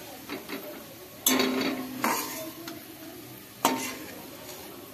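A metal utensil scraping and knocking against a pan of hot oil as fried onions are lifted out, with two sharp ringing clinks, a little over a second in and again later, over a low sizzle of oil.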